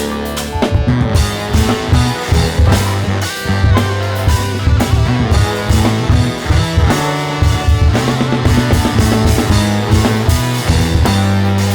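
Rock band playing live: a drum kit hitting steadily under electric guitar and heavy, sustained low bass notes.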